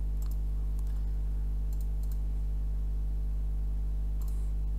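Steady low electrical hum, with a few faint computer mouse clicks scattered through it, one of them near the end as a software menu is opened.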